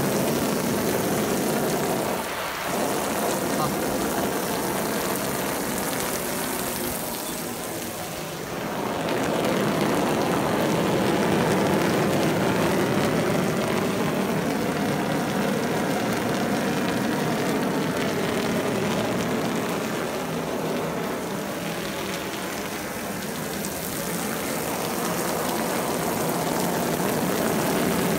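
A stream of water splashing and spattering steadily onto taut waterproof fabric, beading and bouncing off without soaking in. It makes an even hiss that dips briefly about two and eight seconds in.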